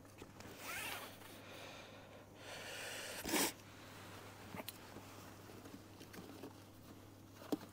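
Luggage strap being handled and threaded around a motorcycle's rail: rustling and scraping of the strap webbing and fabric, with one sharp knock about three seconds in and a few faint ticks after it.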